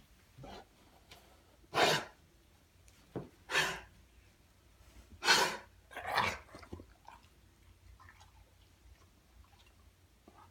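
A series of coughs: four loud, harsh ones between about two and six seconds in, the last two close together, with a few softer coughs around them.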